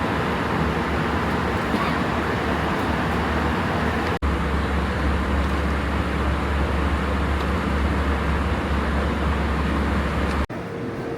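Steady jet airliner cabin noise in flight: a low engine rumble under a hiss of rushing air. It breaks off abruptly twice, about four seconds in and near the end.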